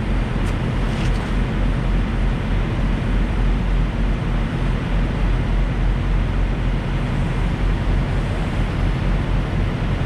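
A heavy diesel truck engine idling: a steady, even low rumble.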